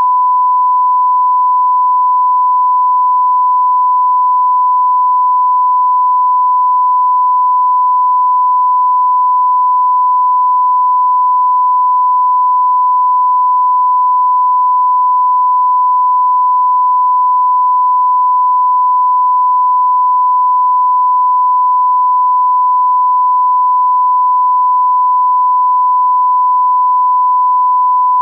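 Steady, unbroken 1 kHz sine-wave test tone: a single pure pitch at a constant level, the reference line-up tone that goes with a broadcast test card.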